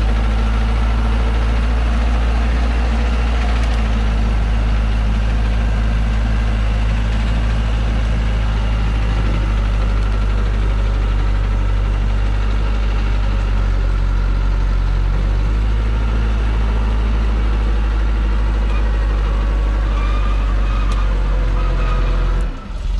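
Diesel engine of a heavily loaded log truck running steadily under load as the truck crawls up a deep-mud slope, its tyres churning through the mud.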